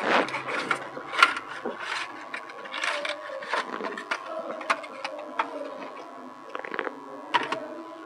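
Unboxing handling noise: a cardboard box slid open and a clear plastic packaging tray pulled out and handled, giving many irregular small clicks and crackles.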